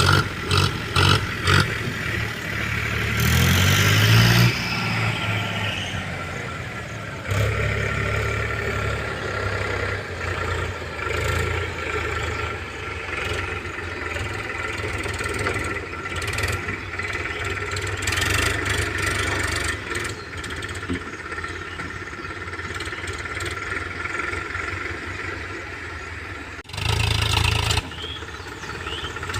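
Powertrac tractor's diesel engine running, revving up about three to four seconds in. The sound jumps abruptly twice, near seven seconds and shortly before the end.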